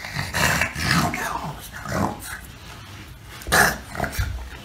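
Boston terrier growling and grunting in short, irregular bursts, the loudest about three and a half seconds in.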